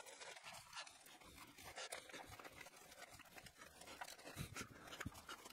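Faint rustling and scratching of a Velcro-backed heat-reflective sleeve being handled and wrapped around an engine wiring loom.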